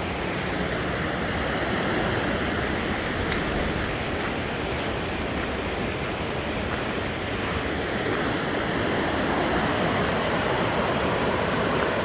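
Waterfall on a mountain river: a steady rush of falling water.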